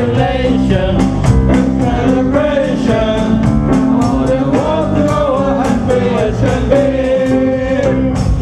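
Live band playing a song: a singing voice carries the melody over instruments and a steady drum beat.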